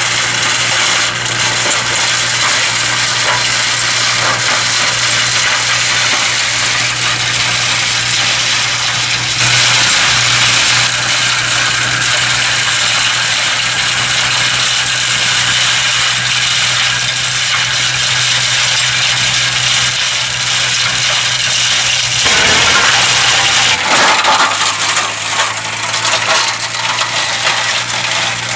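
HUMUS flail mulcher chopping vine prunings, a dense rattling crackle of flails hitting wood over the steady drone of the compact tractor's engine driving it. Near the end the engine note drops lower.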